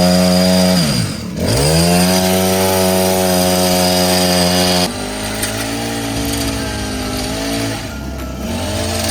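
Toy chainsaw playing its electronic engine sound after its pull cord is pulled: a buzzing motor note that dips and revs back up, then holds steady. About five seconds in it switches abruptly to a quieter engine note, which dips and revs up once more near the end.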